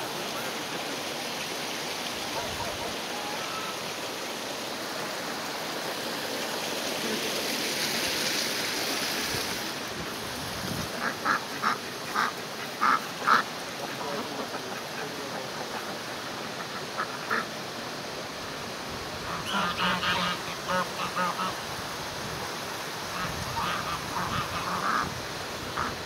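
Domestic ducks quacking in short runs: a quick series of quacks in the middle, then two more clusters of quacks near the end, over a steady rushing background noise.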